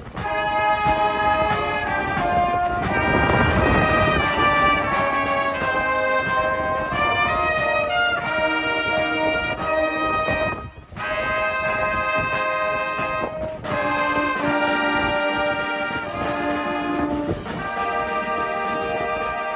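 Live brass band playing: trumpets, trombones and tubas hold chords over a drum kit, with a louder swell about three seconds in and a short break near the middle before the playing picks up again.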